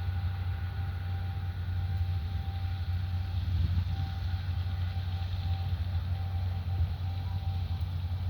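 Steady low engine hum at a constant speed, with a faint steady whine above it.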